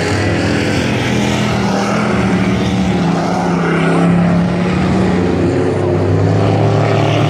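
Race trucks' engines running at speed around a dirt oval track: a loud, continuous engine drone whose pitch rises and falls a little as the trucks lap.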